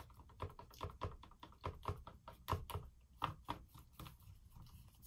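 A flat stir stick stirring paint in a clear plastic cup, knocking and scraping against the cup's sides in quick, irregular clicks, several a second.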